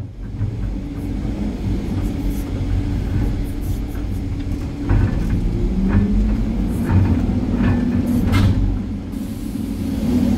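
Excavator's diesel engine and hydraulics running, heard from inside the cab, mixed with a loaded dump truck's engine labouring as it pulls away. The engine note rises about halfway through, with a few sharp clicks and knocks.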